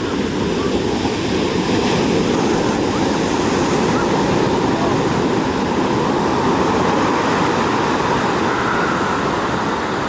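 Large ocean waves breaking and washing up the beach: a steady, unbroken rush of surf.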